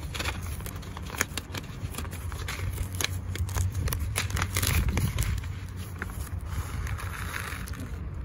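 Paper seed packet being peeled open by hand, crackling and crinkling in quick irregular clicks, over a low steady rumble.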